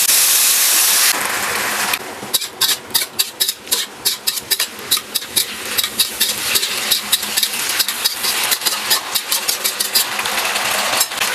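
Kitchen cooking sounds: a steady hiss for about two seconds, then a quick run of sharp, irregular clacks, a few a second, before the hiss comes back near the end.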